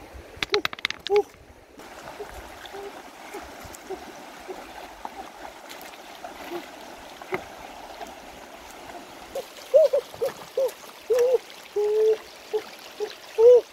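Shallow stream water flowing over rocks, with a few sharp clicks about a second in. Short hooting calls, each a brief rising-and-falling note, come a few at a time early on and then repeat every half second or so through the last few seconds, louder than the water.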